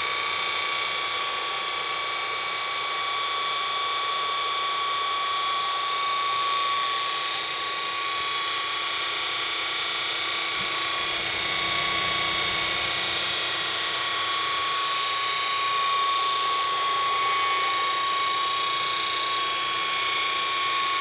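GE 9-inch DC electric motor spinning steadily, a constant high whine over a hiss.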